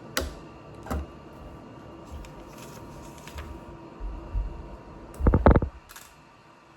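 Plastic LEGO pieces being handled and worked apart: scattered clicks and light knocks, with a louder cluster of quick knocks about five seconds in.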